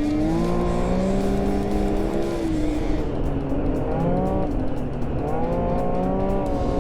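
Yamaha-built 1049 cc three-cylinder four-stroke engine of an Arctic Cat snowmobile running under way, its pitch rising and falling with the throttle. It climbs early on, holds, eases off around three to four seconds in, then climbs again.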